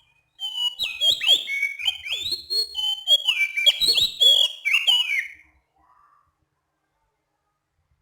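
Oriental magpie-robin (kacer) singing a rapid run of clear, varied whistled phrases with quick pitch glides, stopping after about five seconds.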